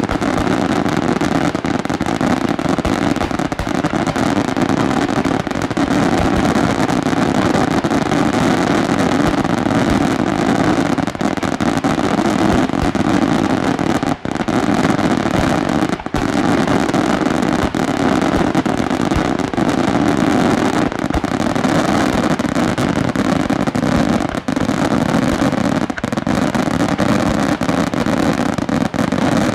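Italian daylight fireworks show firing a rapid, unbroken barrage of shells, the launches and bursts following so closely that they merge into one loud continuous noise with crackle running through it.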